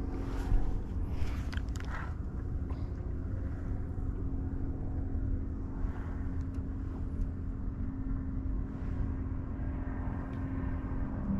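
A steady low motor hum over a rumble of wind on the microphone, with a few light clicks in the first couple of seconds.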